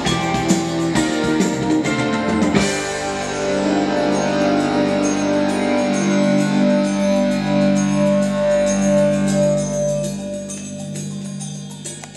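Music: a busy passage with drums, then from about two and a half seconds in held chords that fade near the end.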